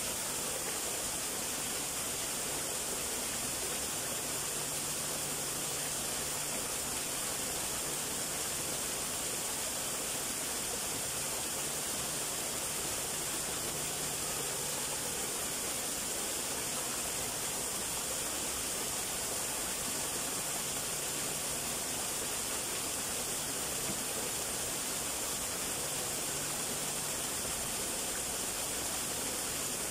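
Small garden waterfall: two thin streams of water falling over rock and splashing into a shallow pool, a steady, even hiss of water.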